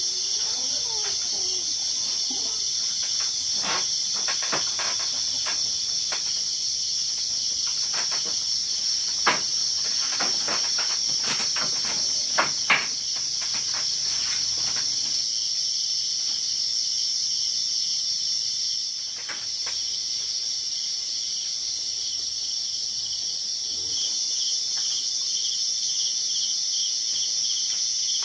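Steady, shrill chorus of insects calling together. A run of sharp clicks and knocks sounds over it in the first half, three of them louder.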